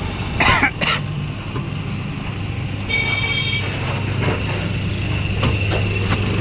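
Double-die paper plate making machine running, with a steady low motor hum. Knocks and clatter come from the dies pressing and the paper sheets being handled, loudest about half a second in. A short horn-like beep sounds about three seconds in.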